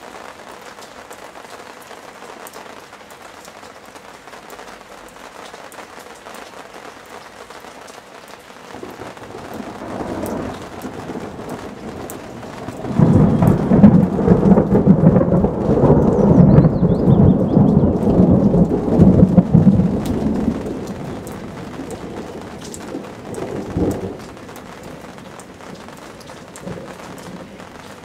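Thunder rumbling over steady rain. The rumble builds about a third of the way in, is loudest and deepest for several seconds in the middle, then dies away, with one last short crack near the end.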